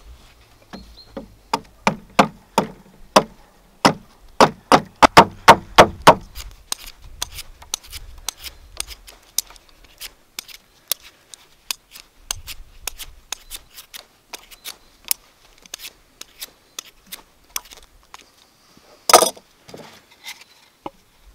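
Hand tools knocking on wood: a run of sharp, ringing wooden knocks, about two a second, for the first six seconds, then lighter scattered taps and clicks, and one brief louder clatter near the end.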